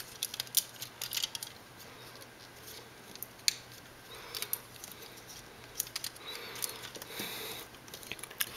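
Plastic parts and joints of a Transformers Generations Deluxe Class Drift action figure clicking as it is handled and folded: scattered sharp clicks, bunched in the first second or so, with a stretch of light scraping in the second half.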